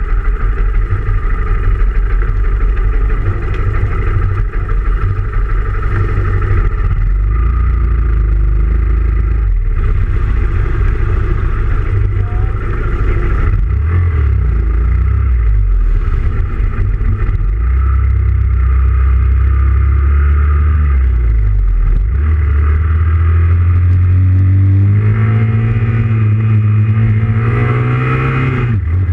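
Honda Grom's small 125 cc single-cylinder engine running while riding in a group of motorcycles, its note rising and falling with the throttle. Near the end the engine note climbs steadily as it accelerates, then drops suddenly at a gear change.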